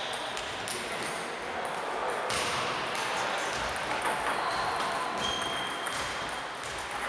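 Table tennis balls clicking sharply off paddles and tables, irregularly and from several tables at once, over the hubbub of a sports hall.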